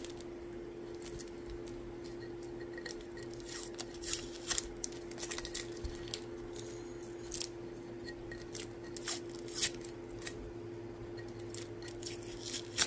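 Heat-resistant tape and sublimation paper being handled and peeled on a frosted glass can: scattered sharp crackles and clicks at irregular intervals, over a steady low hum.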